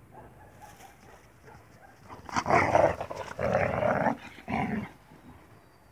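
Central Asian Shepherd Dog puppies play-fighting, growling in three rough bursts a little over two seconds in, the last one short.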